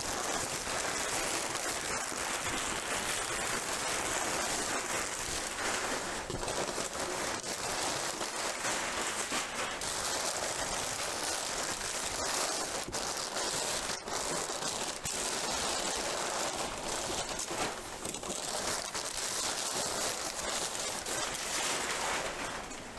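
Crumpled brown kraft packing paper rustling and crackling steadily as it is pulled out of a large cardboard box by the handful.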